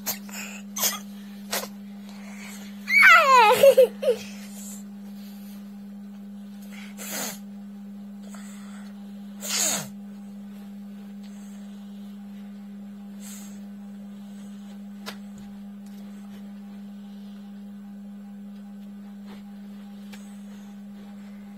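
A person's voice giving one high, downward-gliding squeal about three seconds in, then two short breathy bursts, over a steady low hum.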